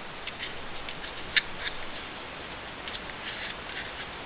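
Light scratching and small clicks of packaging being handled as small aluminum parts are taken out, with one sharper click about a second and a half in.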